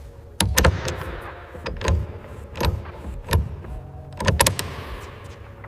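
Workshop hand tools knocking against metal aircraft parts: a string of about seven sharp, uneven clanks over a few seconds, some in quick pairs, over a faint steady hum.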